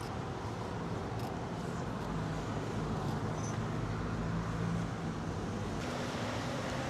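Steady low hum of vehicle engines and road traffic.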